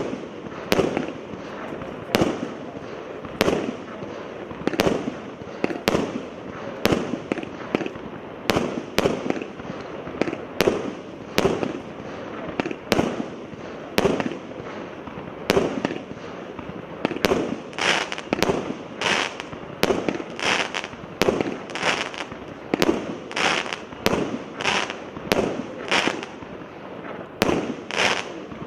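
A 300-shot multi-calibre firework cake (0.8, 1 and 1.2 inch tubes) firing shot after shot at a steady pace of about one a second. Each shot is a sharp bang followed by a short burst, and the bursts grow brighter and hissier from about halfway through.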